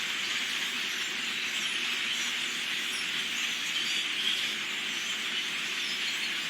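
A huge flock of birds calling at once in the trees: a dense, steady din of many overlapping calls.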